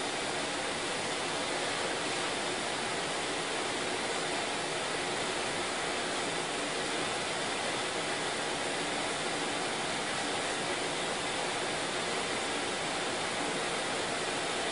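Steady, even hiss at a constant level, with no distinct events.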